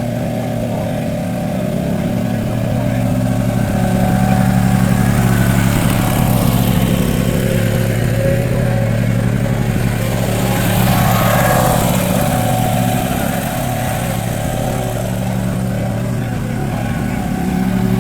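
Gasoline lawnmower engine running steadily, its level swelling and easing a little a couple of times.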